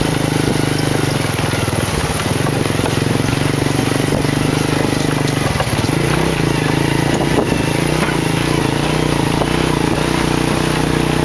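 Motorcycle engine of a remork-moto tuk tuk running steadily while under way, with road and wind noise. The engine note shifts about halfway through.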